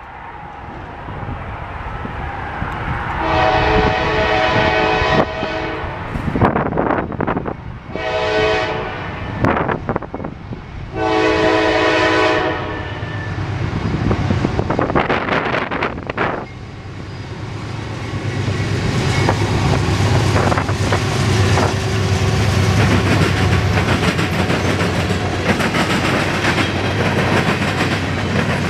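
A GE C40-8W diesel freight locomotive sounding its horn in three blasts, the middle one shortest, as it approaches. It then passes, and a long string of freight cars rolls by with a steady rumble and the clatter of wheels on the rails.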